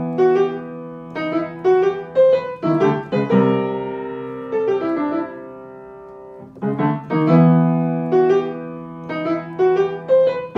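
Solo piano music: phrases of struck notes over held chords, easing into a sustained chord in the middle before the phrase repeats.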